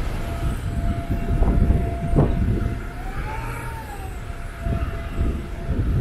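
City street traffic with a steady low rumble, probably on wet roads, and a thin steady whine that rises and falls in pitch once about halfway through. A couple of short knocks come in the first half.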